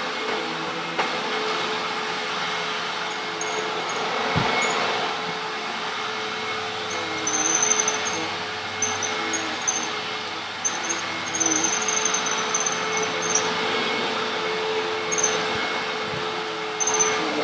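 Hoover WindTunnel upright vacuum cleaner running steadily over a rug, a constant motor rush with a held whine.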